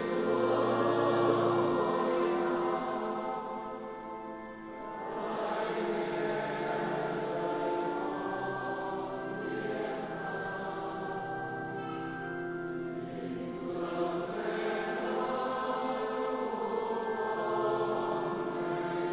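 Church choir singing a hymn in long held notes.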